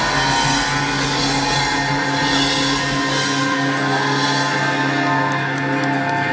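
A live rock band playing the closing section of a song, with held chords and sliding guitar notes, heard through the club's PA.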